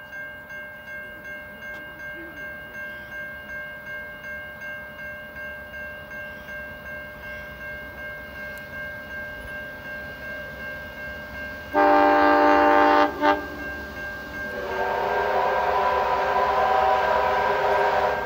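Heritage train's horn sounding: one loud blast about twelve seconds in, a short toot just after, then a longer, hissier whistle from about fifteen seconds on. Before the horn there is a steady ringing pulse, about twice a second.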